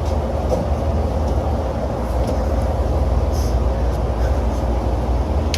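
Rooftop HVAC unit running, a steady low rumble with a faint hum, heard from inside the unit's cabinet.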